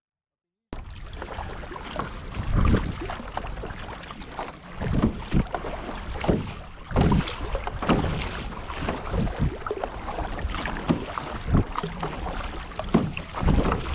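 Sea kayak moving through choppy water: paddle strokes and water slapping against the hull at irregular moments, with wind gusting on the microphone.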